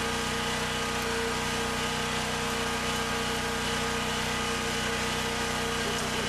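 Small gasoline generator engine running steadily at a constant speed.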